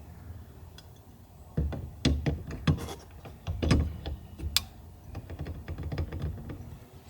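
A run of sharp clicks and knocks from metal mounting hardware being handled and fitted, as a fire extinguisher bracket goes onto a car's roll cage. The clicks are loudest and closest together in the middle, then thin out to lighter taps.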